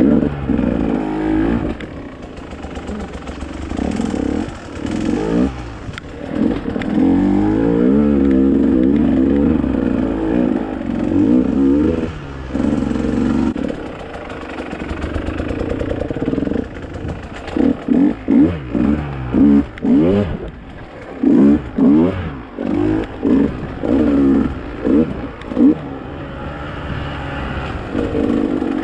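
Dirt bike engine revving up and easing off as it is ridden. In the second half the engine comes in a run of short, sharp throttle bursts.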